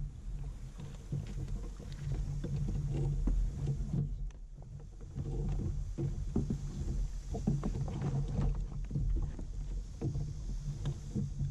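Plastic kayaks drifting side by side: water sloshing against the hulls, with a steady low rumble and many small knocks and clicks from the boats and gear.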